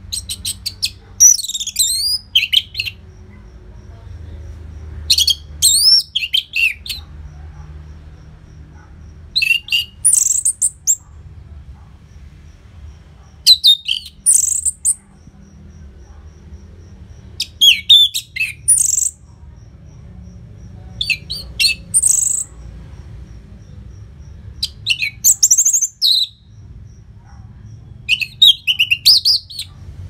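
Orange-headed thrush singing a loud song of varied, high whistled phrases. Each phrase lasts a second or two, and they come about every four seconds with only short pauses between.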